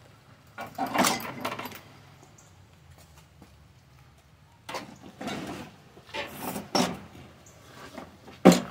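Metal sockets and hand tools clattering as they are rummaged through and tried, in several irregular bursts, with one sharp knock near the end.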